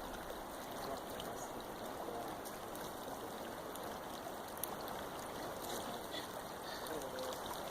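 Creek water running over rocks, a steady rushing and trickling.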